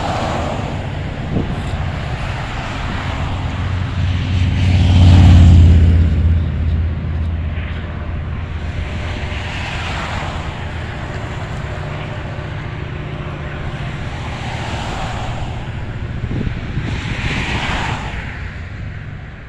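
Steady low engine rumble that swells loudly about five seconds in, with rushes of passing traffic rising and falling every few seconds.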